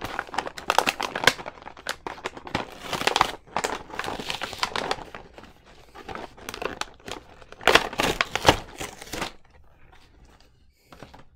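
Plastic toy packaging being opened and the pieces peeled off it: a dense run of crackling that stops about nine seconds in.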